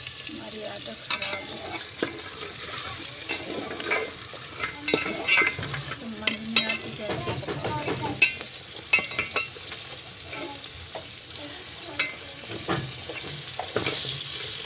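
Chicken, sliced onions and green chillies sizzling in hot oil in a metal pot, while a slotted metal spoon stirs them, scraping and clinking against the pot in irregular strokes.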